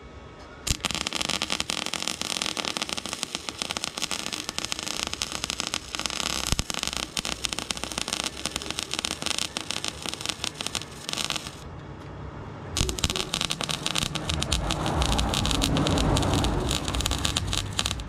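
Flux-core wire welder arc crackling as stainless steel exhaust pipe is welded with flux-core stainless wire, in two runs: the first lasts about eleven seconds, stops for about a second, then a second run goes on almost to the end.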